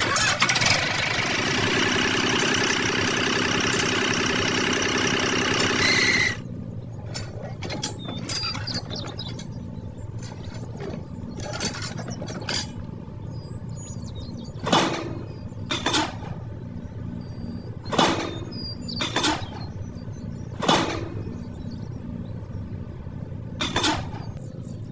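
A small motor runs loud and steady for about six seconds, then cuts off suddenly. After that come scattered sharp clicks and knocks, one every second or few.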